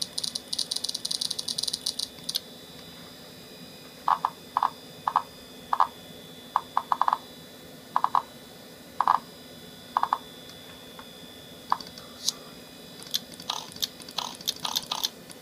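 Mac OS 9 Platinum interface sound effects from the iMac G3's speakers as menus are pulled down and windows opened and collapsed: a quick string of high ticks for about two seconds, then a series of short separate blips, with another cluster of ticks and blips near the end. The sounds play in step with each action, without lag, since virtual memory has been turned off.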